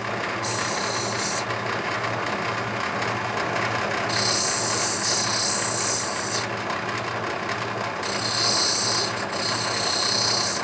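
Lapidary machine's wet diamond wheel running while a piece of rough opal is ground against it. There is a low motor hum that pulses a little more than once a second, and a high grinding hiss that comes and goes in several spells, the longest from about four to six and a half seconds in.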